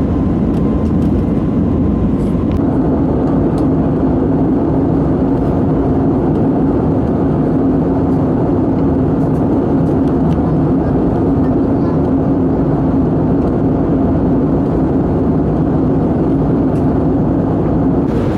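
Cabin noise aboard an Airbus A320neo: a loud, steady rush of engine and airflow noise with a low drone from the CFM LEAP-1A engines. A faint high tone stops about two and a half seconds in, as the drone grows a little stronger.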